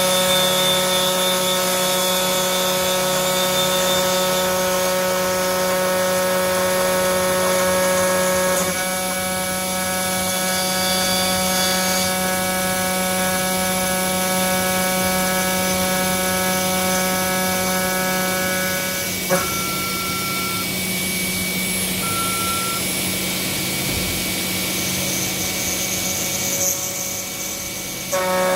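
Milling machine running on aluminium profiles, a steady whine of several tones over a constant hum. The tones shift about nine seconds in, again with a click near nineteen seconds, and come back near the end.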